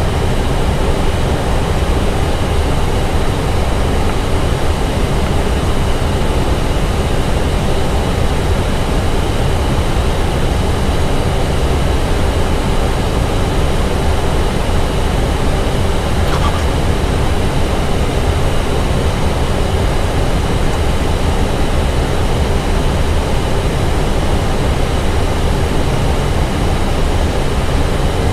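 Steady flight-deck noise of an Airbus A320 in flight on approach: a continuous rush of airflow and air conditioning, heaviest in the low range, with a few faint steady tones under it.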